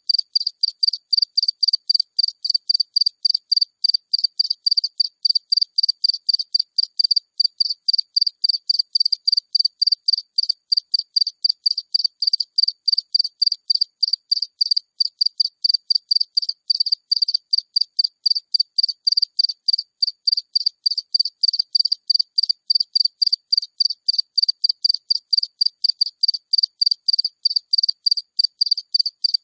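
A single cricket chirping close up: a high-pitched, evenly repeating chirp, several a second, going steadily without a break.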